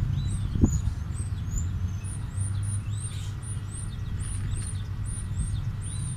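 Small birds chirping, a long run of short high chirps about two a second, over a steady low rumble. A single soft knock about half a second in.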